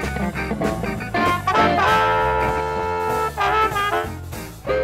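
Amplified blues harmonica solo, the harp cupped to a handheld microphone, over electric bass and drums. Quick short notes give way to a long held chord about two seconds in, then bent notes near the end.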